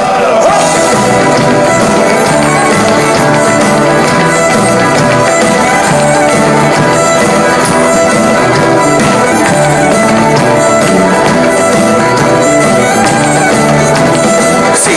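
Live band playing Irish-style music with acoustic guitar and a drum kit, dense and steady throughout.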